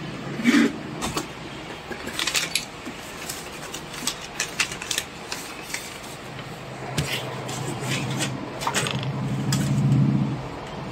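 Scattered computer mouse clicks, single and in quick clusters, over a steady low hum that swells briefly near the end.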